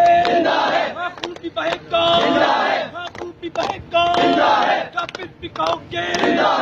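A crowd of young men chanting political slogans in Urdu, with a loud unison shout about every two seconds.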